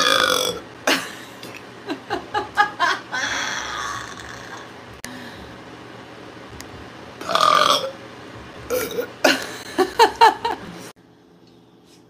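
A woman belching repeatedly: several long burps and runs of short, choppy ones. The sound cuts off suddenly near the end.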